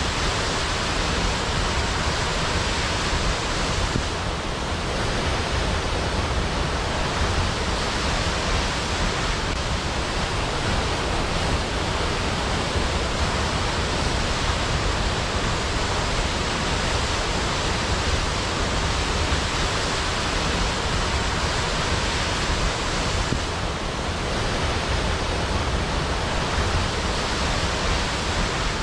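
Waterfall: falling water rushing steadily, an even, unbroken noise with no rhythm or change.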